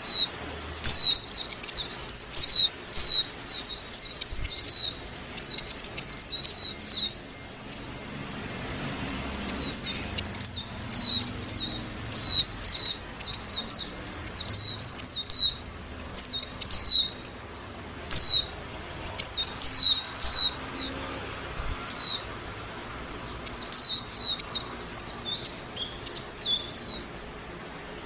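White-eye singing: quick runs of short, high, downward-sweeping chirps lasting a few seconds each, broken by brief pauses.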